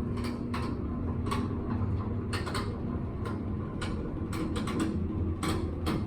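A steady low mechanical hum with scattered short clicks and creaks.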